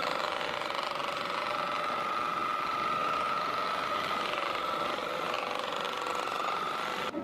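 Handheld electric percussion massager buzzing steadily with a high-pitched whine as it works over the lower back. It cuts off suddenly near the end.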